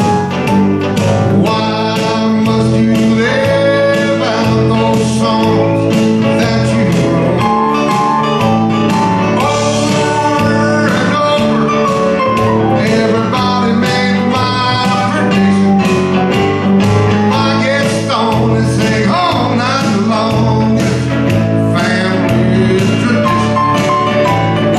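Live country band music led by electric guitar, over a steady beat.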